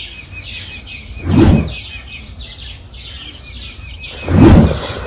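Birds singing: one repeats a short chirp at one pitch, about five times a second, over other higher notes. Two brief low rumbles, about a second and a half and four and a half seconds in, are louder than the birdsong.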